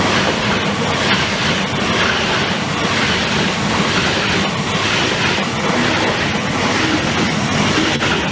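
High-speed train running on its rails: a steady, even noise of wheels and track.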